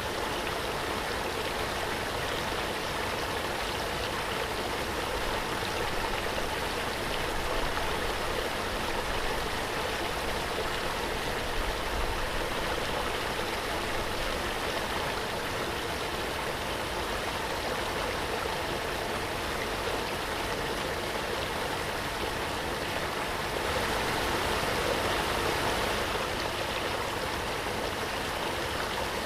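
Waterfall: a steady, even rush of falling water, swelling slightly near the end.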